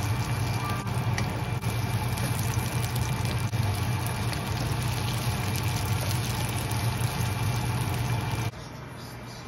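A steady mechanical running noise, a low hum under an even hiss, that cuts off sharply near the end.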